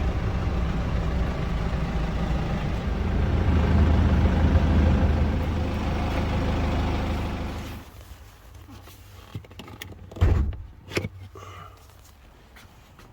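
BMW 520d's four-cylinder diesel engine running, a little louder for a couple of seconds in the middle, then switched off about eight seconds in. A few knocks follow, with a loud thump about ten seconds in.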